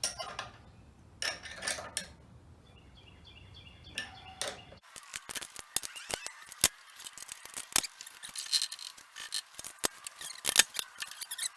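Metal parts of a jointer-planer being handled: a few knocks and a short squeaky ratcheting run. Then a dense series of sharp, irregular clicks and taps.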